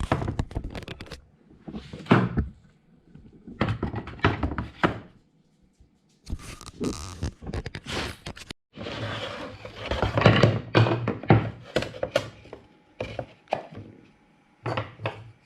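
Half-inch Baltic birch plywood parts knocking, thunking and scraping as they are handled and fitted together. The sound comes in short bursts that cut off abruptly between clips.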